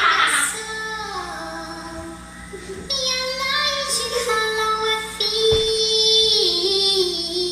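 A recorded song with a high singing voice holding long notes that glide from pitch to pitch, played back loud through a karaoke speaker system for a sound test.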